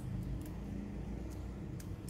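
Kitchen knife trimming raw shrimp on a wooden chopping board: a few faint clicks and snips of the blade through the shell, over a steady low rumble.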